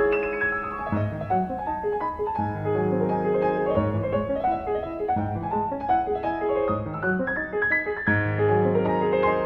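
Background piano music: a steady stream of notes over a low bass line.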